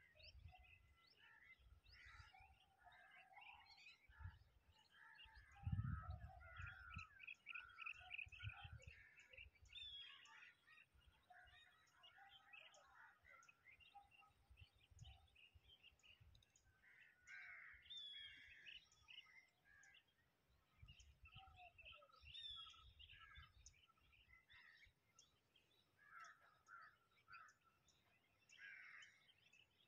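Faint birds calling and chirping at dusk, many short overlapping calls all through. A few low rumbles come and go, the loudest about six seconds in.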